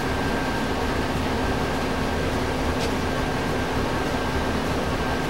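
Steady machine hum with a constant high whine and even whirring hiss. A faint click comes about three seconds in.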